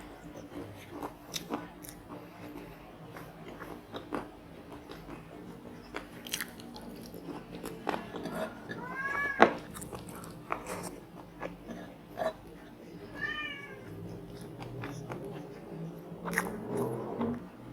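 Close-up chewing and crunching of fried seafood in the mouth, with bites and sharp crunches throughout and one loud crack about halfway. Two short, high, arching calls break in, one about 9 seconds in and another about 13 seconds in.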